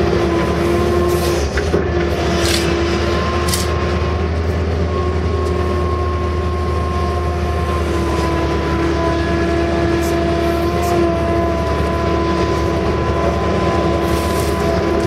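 Case CX160 excavator's diesel engine running steadily under digging load, heard from inside the cab, with a steady hydraulic whine that shifts slightly in pitch as the controls are worked. A few short clicks and knocks come through now and then.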